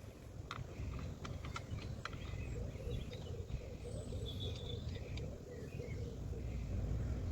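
Outdoor ambience: birds chirping over a steady low rumble, with a few faint clicks in the first two seconds.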